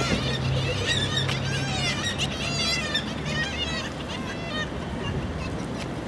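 A colony of black-legged kittiwakes calling, many harsh calls overlapping one another. The calling is busiest in the first half and thins out toward the end.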